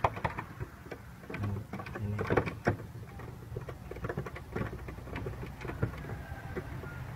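Irregular clicks and light knocks of a hand tool and plastic parts as the plastic power-steering reservoir of a Kia Sportage is bolted in place, with the engine off.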